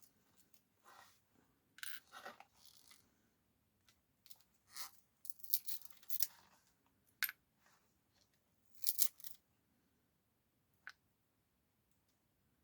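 Irregular crackling and scraping as tools work the cracked glass of a tablet's touch screen off its heat-softened adhesive, loudest about halfway through and again briefly a little later, then trailing off.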